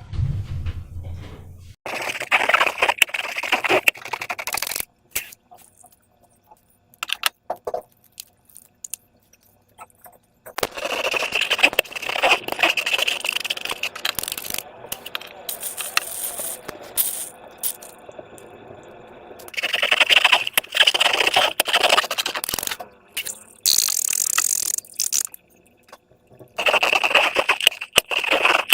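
Slime being handled and worked, giving crackling and scraping sounds in several stretches with short pauses between.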